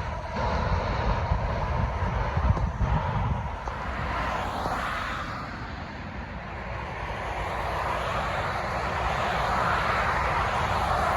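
Jet airliner engines: a steady rushing roar that eases around the middle and builds again toward the end, with an uneven low rumble in the first few seconds.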